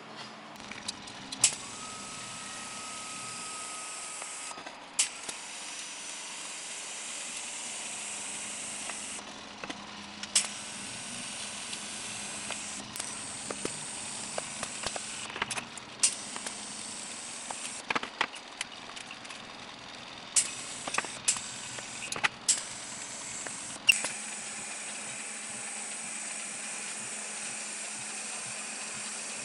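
TIG welding arc and shielding gas hissing steadily while steel hex nuts are welded to a steel plate, with a steady high-pitched whine from a faulty gas pressure regulator. Scattered sharp clicks come through the middle of the stretch.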